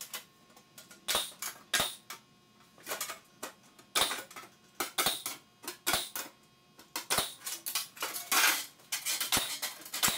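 A hole punch going through a steel sheet-metal panel at the workbench: an irregular run of short, sharp metallic clicks and clacks as the holes are punched and the panel is handled.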